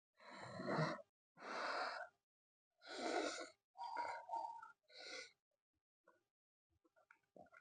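Maggi noodles being slurped in five noisy bursts of under a second each, followed by soft chewing and mouth clicks near the end.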